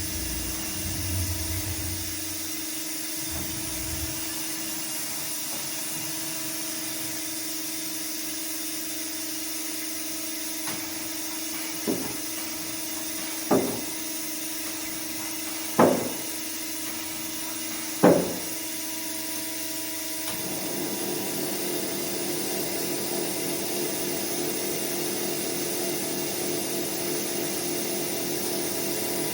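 Haas SL-20THE CNC lathe running with a steady hum. It gives four sharp clunks roughly two seconds apart, then about two-thirds of the way through the sound changes to a broader, slightly higher running noise.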